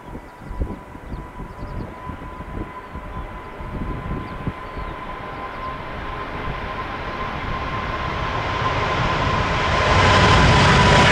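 Jet airliner departing, its engines growing steadily louder over several seconds with a steady whine, the roar brightening as it comes closer. Gusts of wind buffet the microphone in the first half.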